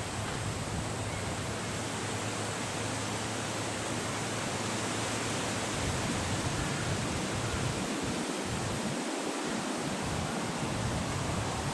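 Steady, even hiss of noise with no distinct events in it.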